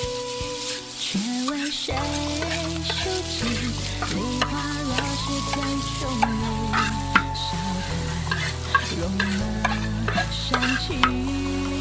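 Metal spatula stirring and scraping egg fried rice in a large iron wok, with frying sizzle and sharp clanks of the spatula on the wok, the loudest about seven seconds in. Background music with held notes plays underneath.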